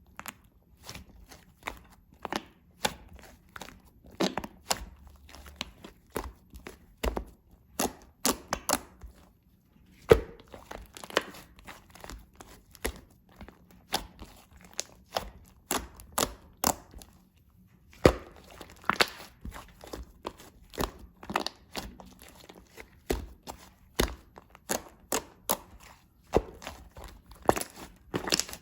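Blue slime being squeezed and worked by hand, giving irregular sharp clicks and pops several times a second with a few short pauses.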